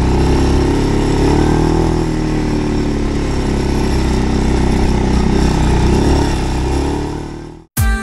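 Segway Snarler AT6L 570cc 4x4 ATV engine running at low, varying speed, its pitch drifting gently up and down. It cuts off abruptly near the end.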